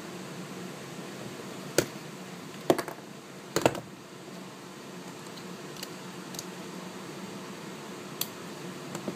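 A few sharp knocks and clicks over a steady background hum. The loudest come in a cluster about two to four seconds in, with fainter ones later.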